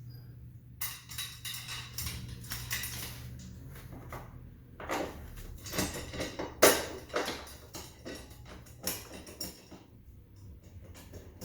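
Metal clinking and knocking as a steel rear lower tie bar and its bolts are handled and pushed into place on their mounts under the car. The knocks come irregularly, with the loudest one a little past the middle.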